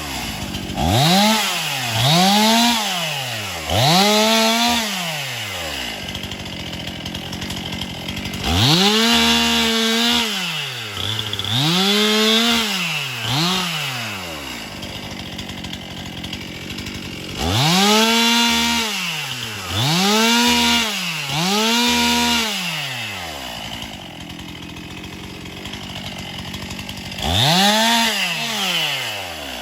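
Chainsaw engine revved in short bursts, about eleven times in groups of three or four: each time the pitch rises, holds briefly and falls back to idle, with the saw idling between groups.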